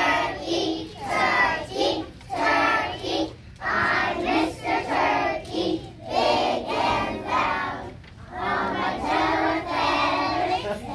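A group of preschool children singing a song together, in short phrases with brief breaks between them.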